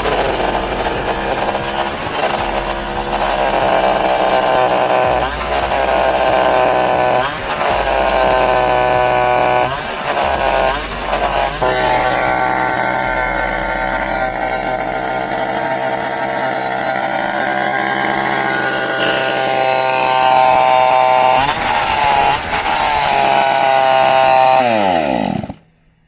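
50cc two-stroke race bike engine running, blipped up in revs every couple of seconds, then dying away with falling pitch near the end. It is running on its own now, where before it would only fire for a couple of seconds.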